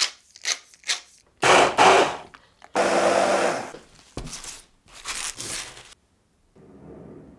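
Pepper mill grinding black pepper in a quick run of short twists, then loud rustling and crackling as a leafy head of cauliflower is handled and shaken, with one knock midway. A faint low hum comes in near the end.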